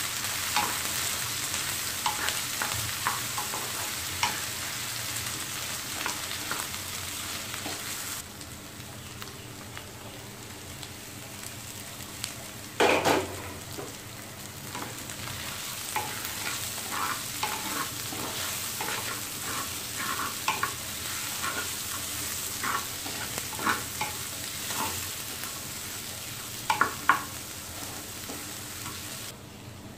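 Vegetables frying in oil in a steel pan, sizzling, while a spatula scrapes and stirs them. The sizzle is louder for the first eight seconds or so. A single loud knock comes about thirteen seconds in, and two sharp knocks near the end.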